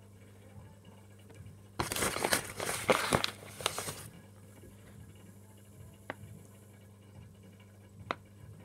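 A burst of crinkling, crackling handling noise starting about two seconds in and lasting about two seconds, followed by two light clicks.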